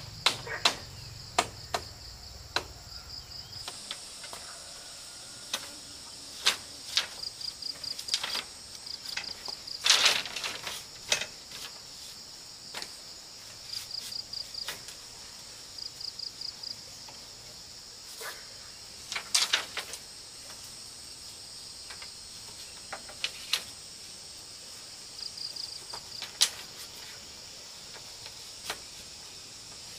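Split bamboo strips clacking and tapping against each other as they are laid and woven into a slatted panel, in irregular knocks with a couple of louder clatters about a third and two-thirds of the way through. Insects chirp steadily behind, in short repeated pulses.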